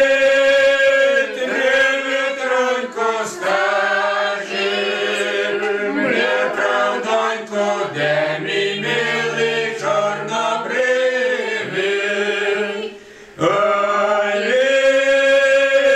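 An older man singing unaccompanied, holding long notes with slow glides between them, with a short break between lines about three-quarters of the way through.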